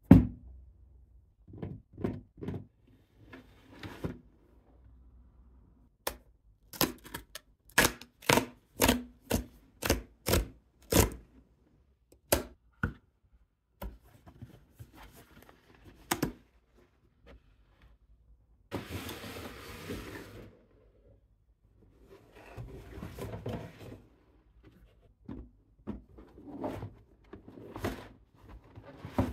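Cardboard shipping box being handled and opened with gloved hands: a run of sharp taps and knocks on the cardboard, about two a second for several seconds, then longer scraping and sliding of cardboard as the inner flaps are pulled back and a cardboard shoe box is lifted out.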